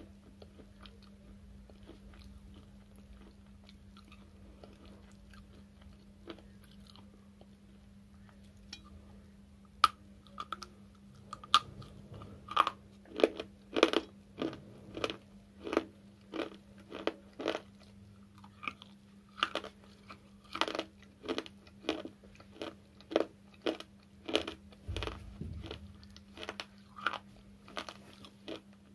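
Slate pencil chips being bitten and chewed close to the microphone. A sharp bite comes about ten seconds in, after a quiet stretch, and is followed by dry, brittle crunches at about two a second.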